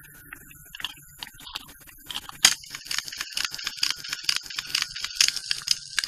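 Irregular clicking and rattling from a doll's miniature record-player mechanism, with a faint steady hum under it. One sharper click comes about two and a half seconds in.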